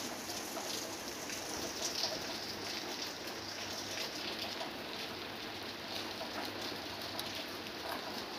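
Rain falling on the leaves of a fig tree: a steady hiss of many small drop hits.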